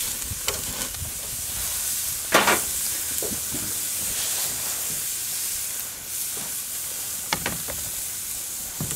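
Steaks sizzling steadily on the grates of a hot gas grill, with a few short knocks, the loudest about two and a half seconds in.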